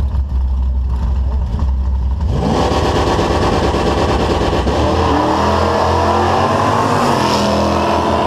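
Two Tri-Five Chevrolet drag cars rumbling low at the starting line, then launching about two seconds in: the engines go to full throttle and climb in pitch, staying loud as the cars accelerate away down the strip.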